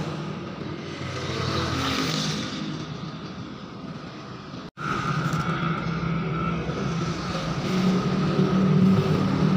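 An engine running steadily, a low hum that grows louder near the end; the sound drops out for an instant about halfway through.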